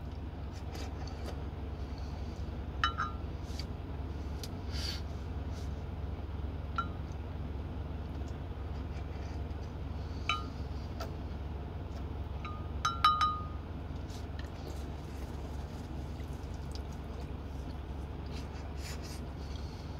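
A painted wooden spoon clinking against a glass soup mug a few times, each tap ringing briefly; the loudest is a double clink about two-thirds of the way through. A steady low hum runs underneath.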